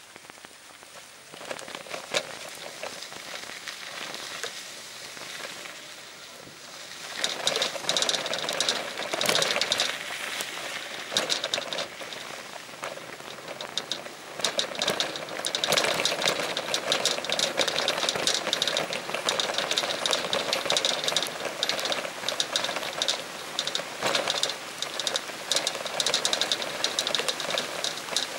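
Rain falling, with many drops clicking rapidly on a surface. It grows much heavier about seven seconds in.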